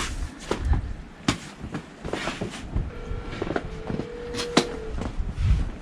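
Irregular knocks and rattles, with a steady tone sounding for about two seconds past the middle.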